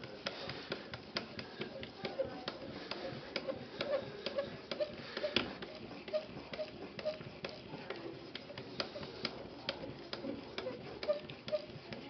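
Edge Pro Apex sharpening stone stroked repeatedly along the edge of a ZDP-189 steel knife blade, a short click or scrape about twice a second, working up a burr.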